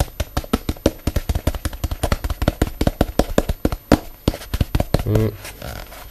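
Rapid, irregular light taps, several a second, from fingers working spilled metal polishing powder back into its small jar. A short voice sound about five seconds in.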